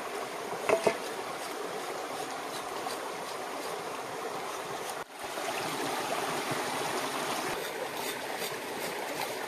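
Shallow stream running over rocks, a steady rushing, with faint scraping strokes of a knife blade on the singed skin of a pig's leg. The sound drops out for a moment about five seconds in.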